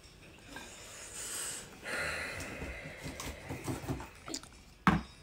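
Faint rubbing and handling noise, with a single sharp knock near the end.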